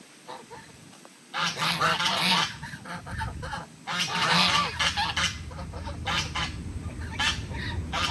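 Honking bird calls in repeated bouts, starting about a second and a half in, over a steady low hum.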